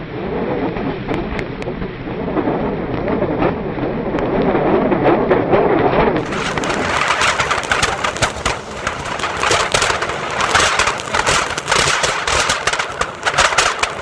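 Anar fountain firework burning as a table fan spins it, a steady hissing rush of sparks. About six seconds in it changes abruptly to a sharper, dense crackling.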